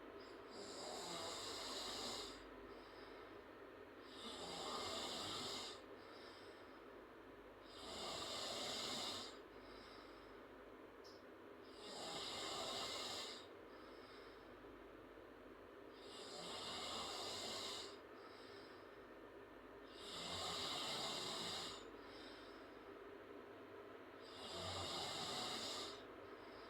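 A girl snoring in her sleep with her mouth open: seven breathy snores, one about every four seconds, each lasting one and a half to two seconds.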